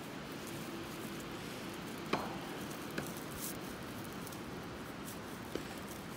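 Twisted fibre rope being handled while a knot is tied: soft rustling and a few short clicks as the rope rubs through the hands, the sharpest about two seconds in, over a steady low hiss.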